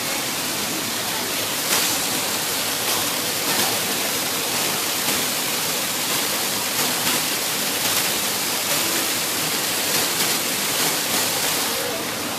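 Steady rushing noise, strongest in the high range, with a few faint ticks.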